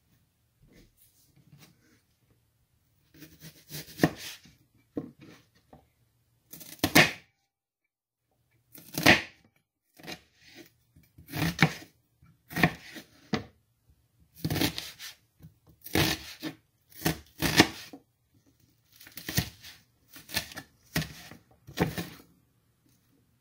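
Kitchen knife cutting through an onion on a cutting board, in irregular strokes with crisp crunches and knocks of the blade on the board. The knife is one its owner says needs sharpening.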